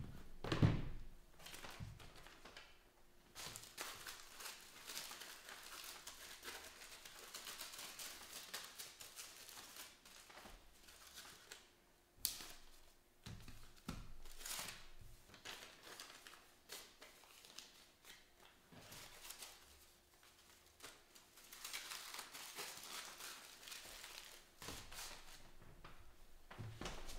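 Aluminium foil crinkling as a foil-wrapped sandwich is unwrapped and handled, in two long stretches, with a thump about half a second in and a couple of sharp knocks on the table later.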